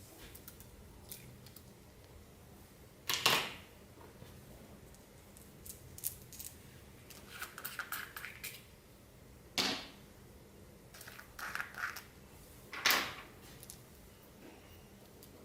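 Hands working clear slime mixed with plastic beads: scattered small clicks and crackles, with three louder sharp pops spread through.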